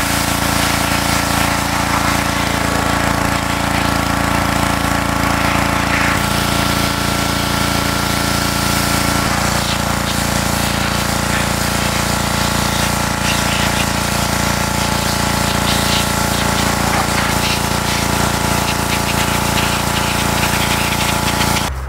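Pressure washer running steadily: its motor and pump drone under the hiss of the spray as it blasts dirt and grease off a transmission case. It cuts off suddenly near the end.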